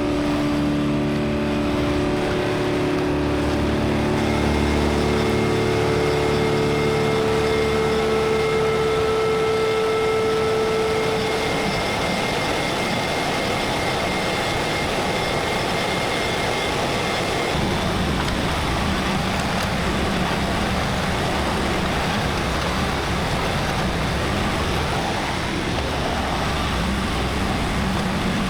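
LS XR3140H compact tractor's diesel engine running steadily under working load. Its steady hum of several pitches gives way after about twelve seconds to a rougher, noisier run.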